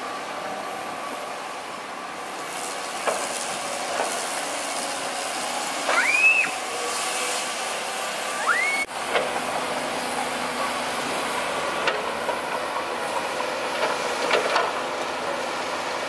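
Komatsu hydraulic excavators working, their diesel engines and hydraulics running steadily with a hiss while digging soil. Two short rising squeals come about six and eight and a half seconds in.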